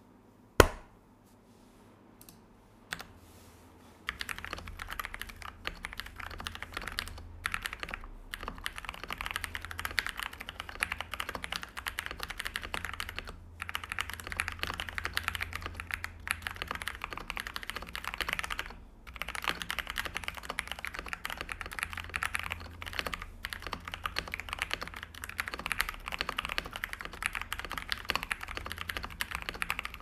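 Fast continuous typing on a Royal Kludge RK71 mechanical keyboard with lubed RK Brown tactile switches, OEM-profile keycaps, factory plate stabilizers and foam added under and on the PCB, broken by a few brief pauses. The typing starts about four seconds in, after one sharp crack and a couple of single clicks.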